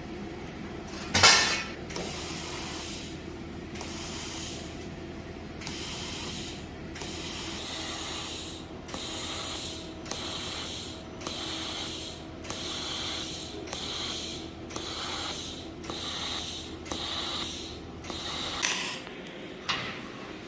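Stove workshop tool noise over a steady machine hum: one sharp loud clack about a second in, then a regular run of short hissing strokes, about one a second.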